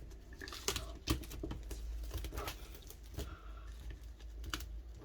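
Fingernails picking and scratching at the plastic shrink-wrap on a DVD case, making irregular small clicks and taps; the wrap is stuck fast to the case.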